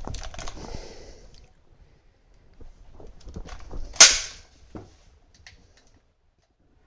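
Toy gun fired once, about four seconds in: a single sharp bang, the loudest sound here. Before it come rustling and a few clicks as the toy is handled.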